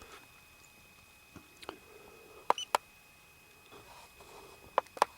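Sharp plastic clicks of a camera's buttons being pressed, two pairs of quick clicks and a few fainter ones, while recorded clips are stepped through. A faint steady high electronic whine runs underneath.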